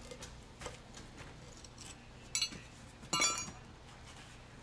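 Two ringing metallic clinks, the louder one about three seconds in, of metal striking hard material, amid light taps and scrapes as a granite curb block is worked into its mortar bed.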